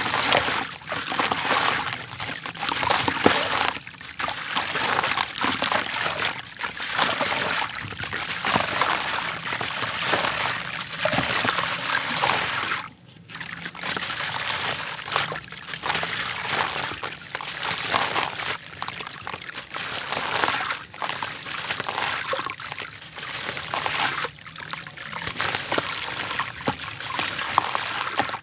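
Dry, grainy red dirt crumbled by hand from a block and trickling into a tub of water: a dense, gritty pouring and pattering that swells and falls every second or two, with a short break about thirteen seconds in.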